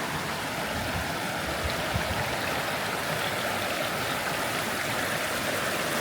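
Creek water flowing: a steady, even rush of running water.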